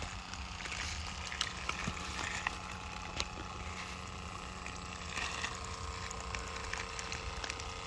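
Greeshow portable electric water filter pump running with a steady hum, with scattered small ticks and gurgles as it pushes air out of its lines just after starting up.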